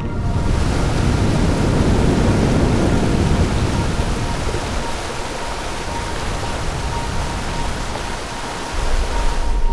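Rough, stormy sea: a dense, steady rush of water noise, heaviest in the first few seconds, that cuts in and out sharply.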